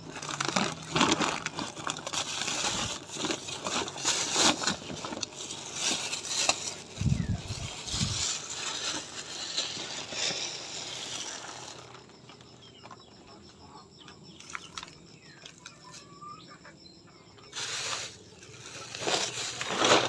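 Rustling and crinkling of a woven plastic feed sack handled close up as feed is scooped out by hand. It is dense and crackly for the first half, with a couple of dull bumps about seven seconds in, then quieter, with two short bursts of rustling near the end.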